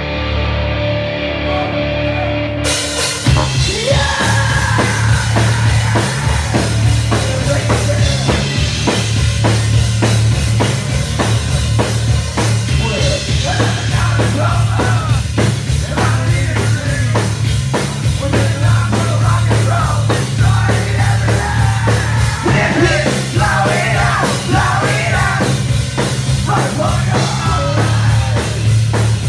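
Hard rock band playing live, loud and close: a held chord opens, then drums and electric guitars come in about three seconds in, with a male singer singing over the band.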